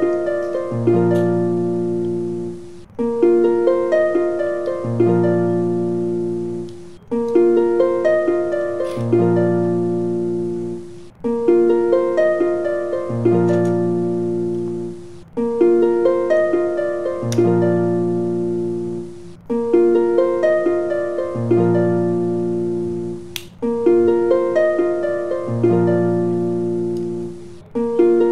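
Background music: a gentle plucked-string melody looping one short phrase about every four seconds.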